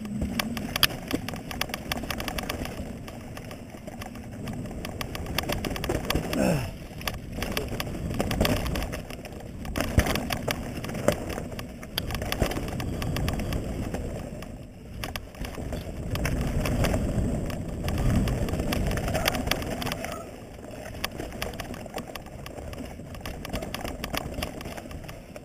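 Mountain bike descending a rocky dirt singletrack: tyres rolling and crunching over dirt and loose stones, with the bike rattling and clattering over bumps in a dense run of knocks, louder in stretches.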